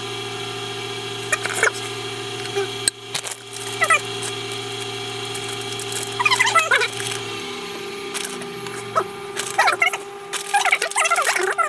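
Background music: a held chord of steady tones that slides down in pitch about two-thirds of the way through, with short chirping sounds over it every second or two.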